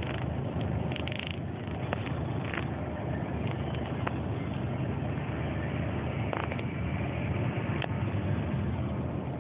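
A bus's engine runs in a steady low drone with road noise, heard from inside the passenger cabin in slow traffic. A few faint clicks or rattles sound over it.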